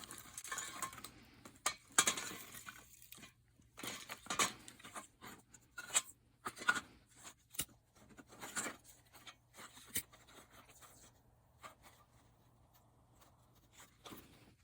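Dry kindling at a newly lit campfire giving irregular crackles, sharp snaps and short rustling bursts, thinning out for the last few seconds.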